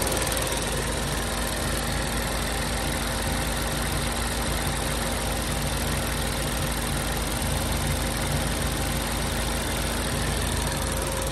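Ford Focus ST's turbocharged 2.0-litre four-cylinder engine idling steadily, heard from over the open engine bay.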